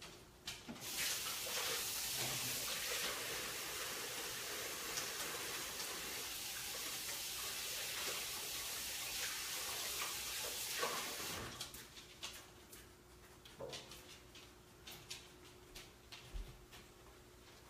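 Kitchen tap running while hands are washed under it, a steady hiss of water that shuts off about eleven seconds in. After that come a few faint knocks and clicks from moving about.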